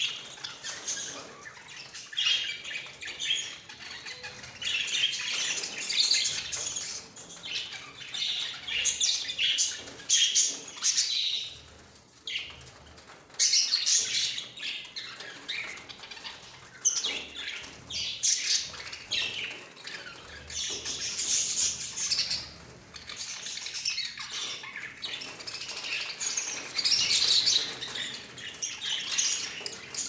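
A flock of budgerigars chattering and chirping without pause, a dense jumble of high, scratchy calls, with wings fluttering now and then as birds move about.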